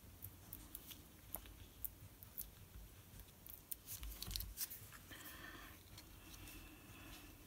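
Faint rustling and scattered small clicks of paper and cardstock pieces being handled and pressed into place by hand.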